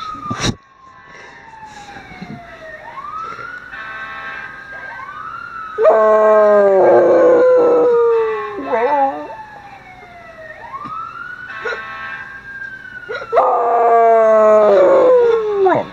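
A dog howling at a wailing siren. The siren slowly rises and falls in pitch throughout, and the dog gives two long howls, each about two seconds, falling in pitch and louder than the siren.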